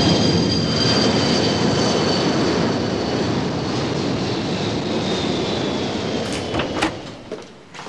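Jet airliner passing low overhead on landing approach: steady engine noise with a high whine that slowly falls in pitch, fading away near the end. A few sharp knocks come just before it dies out.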